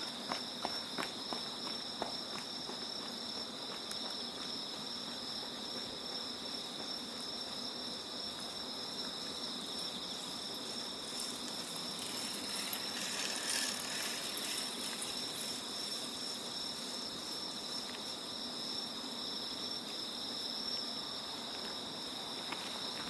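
Night chorus of autumn insects such as crickets, a steady trilling at two high pitches. A few footsteps sound in the first couple of seconds, and a brief hiss swells and fades about halfway through.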